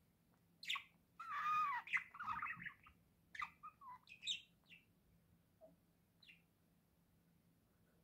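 Budgerigars chirping and chattering: a sharp chirp, then a warbling run of quick calls over about four seconds, and one last short chirp a little later.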